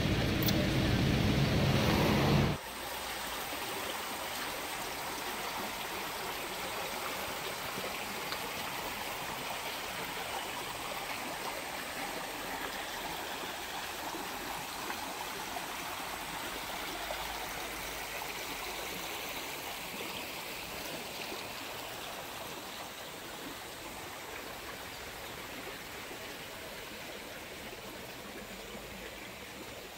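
Small stream running and trickling over rocks, a steady rushing that eases a little toward the end. In the first couple of seconds a louder low rumble plays, then cuts off abruptly.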